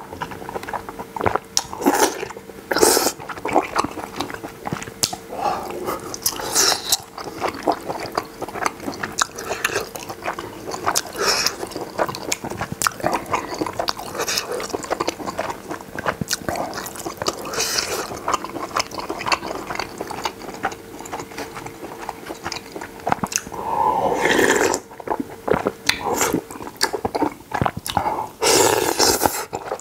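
Close-miked eating of cheese-topped spicy buldak noodles: steady wet chewing and mouth clicks, broken by several louder slurps of the long cheesy noodle strands, the longest ones near the end.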